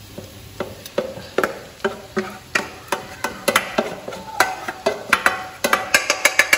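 A cooking utensil knocking and scraping in a frying pan as mung beans are added and stirred into fried pork fat and onion: irregular sharp knocks, coming quicker, several a second, near the end.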